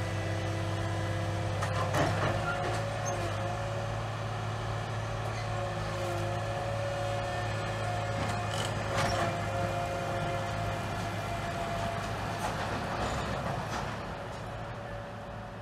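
A slow-moving track-renewal work train of flat rail wagons with a gantry crane passing: a steady low engine drone with thin whining tones above it and a couple of metal clanks, about two and nine seconds in. It grows quieter near the end as the train draws away.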